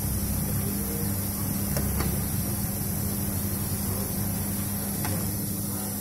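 Coffee roaster's cooling tray running: a steady motor hum with roasted coffee beans rustling as the rotating stirring arm sweeps them around the tray, and a couple of light clicks.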